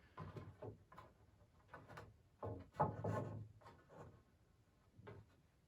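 Light wooden knocks and scraping as poplar swing slats are handled and laid out on the frame to check their spacing, with a cluster of louder knocks midway.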